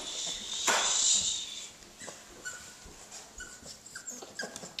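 Puggle puppies whimpering in short, high squeaks while they play, with a louder noisy burst about a second in.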